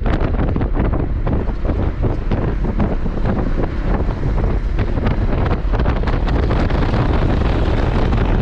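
Wind buffeting the microphone in uneven gusts over the steady rumble of a moving car on the road.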